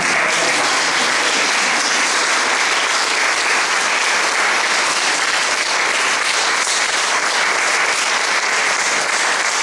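Audience applauding steadily in a hall at the end of a talk.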